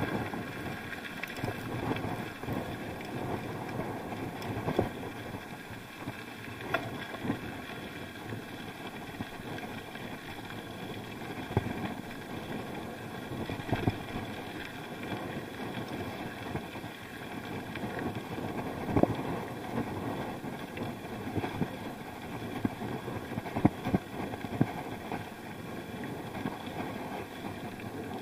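Ride noise of a bike on a rough road, picked up by a mounted action camera: a steady rush of wind and road noise with frequent short knocks and rattles as the bike goes over bumps.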